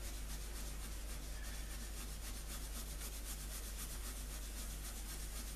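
Toothbrush scrubbing degreaser into a fabric radio dial cloth in quick, even back-and-forth strokes, bristles rasping softly on the weave.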